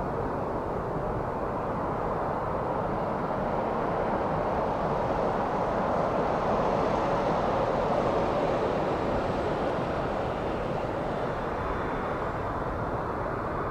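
Jet engines of a twin-engine widebody airliner climbing out after take-off: a steady roar that grows slightly louder towards the middle and eases a little near the end.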